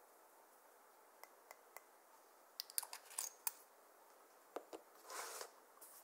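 Light plastic clicks and taps from a small clear jar of loose glitter eyeshadow being tapped out over clear slime, a cluster of them about three seconds in. Near the end comes a brief soft rustling squish as hands press into the glitter-covered slime.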